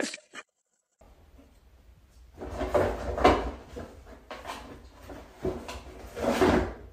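A cat with its head pushed into a cardboard box, the cardboard scraping and rustling in a string of uneven bursts from about two seconds in.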